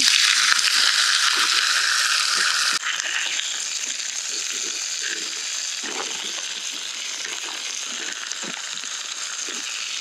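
Hot oiled pan sizzling as fresh rice noodles go in and are handled, with crinkling, crunching sounds through the sizzle. The sizzle is loudest at first and drops abruptly about three seconds in.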